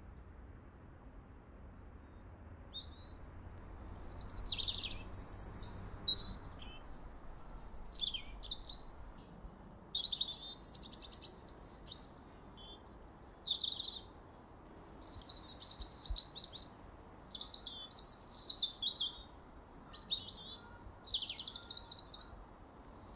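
Small birds chirping: a busy run of short, high, sweeping calls that starts a few seconds in and goes on without a break, over a faint steady hiss.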